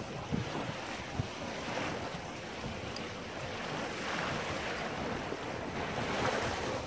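Wind buffeting the microphone and water rushing past the hull of a sailboat under way, a steady rushing that swells and eases gently.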